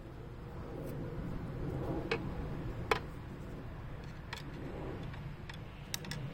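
Scattered sharp metal clinks and taps of hand tools and small parts being handled during engine disassembly, about six in all with the loudest about three seconds in and two in quick succession near the end, over a low steady background rumble.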